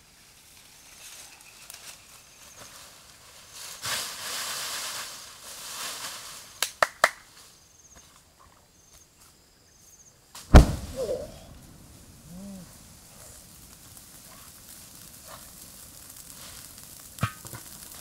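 Dry bamboo leaves rustling as they are heaped, with a few sharp snaps, then a loud thump about ten and a half seconds in. A leaf fire crackles faintly near the end.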